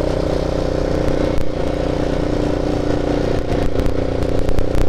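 Quad bike (beach ATV) engine running steadily under way on sand, with light clattering near the end.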